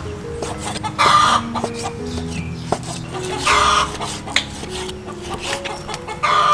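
A kitchen knife slicing raw pork on a wooden chopping board, the blade tapping the board now and then. Over it, a loud short call comes three times, about two and a half seconds apart, with soft background music underneath.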